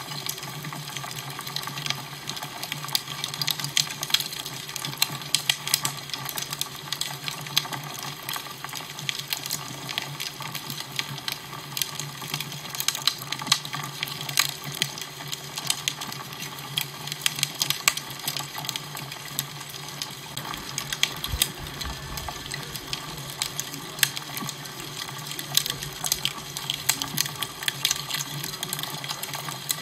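Fire crackling: a steady hiss with frequent sharp crackles and pops, over a steady low hum.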